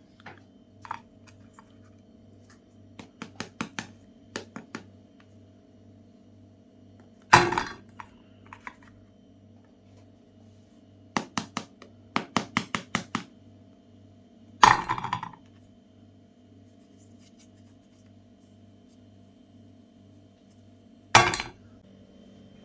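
Quick runs of hard clicks and three loud thunks over a faint steady hum, from Magnum ice cream bars being handled and fed into a meat grinder.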